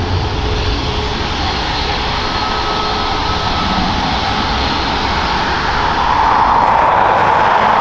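Jet airliner engines running, a steady rushing noise with a thin whine, swelling slightly about six seconds in.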